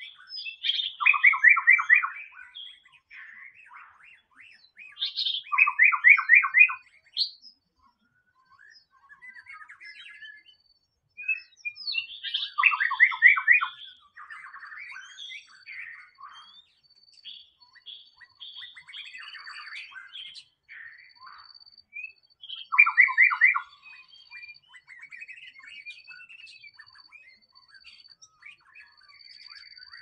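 White-rumped shama singing: four loud phrases of fast repeated notes, each a second or two long, with quieter varied whistles and chirps between them.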